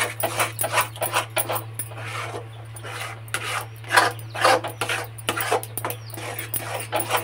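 Metal spatula scraping and slapping a thick, sticky flour-and-sugar dough around an uncoated aluminium pan, in quick, irregular strokes several times a second. The dough clings to the pan because it is not non-stick.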